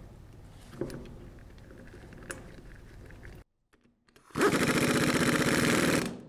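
An impact wrench hammers a bolt of the glycol pump's pilot piston cap tight in one rapid burst lasting under two seconds, starting about four seconds in. Before it come a few light clicks of metal parts being handled.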